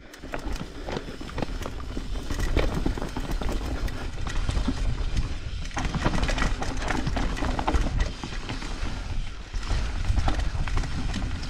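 Trek Slash 8 full-suspension mountain bike descending fast over a rough dirt trail: tyres rolling over roots and rocks, with constant rattling and clattering from the bike over a low wind rumble on the microphone.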